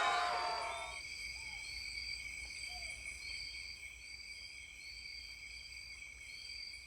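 Rainforest insect chorus: several steady high-pitched buzzing tones, with a repeating chirp that rises and falls about once a second. A crowd's cheering voices fade out in the first second.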